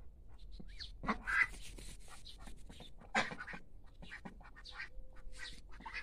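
Domestic ducks quacking in short, rasping calls, with louder quacks about a second in and about three seconds in.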